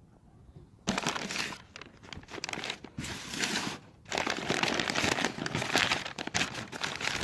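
Packing wrap crinkling and rustling as a part is handled and pulled out of it. It starts about a second in and goes on in three spells of handling, with short breaks near three and four seconds in.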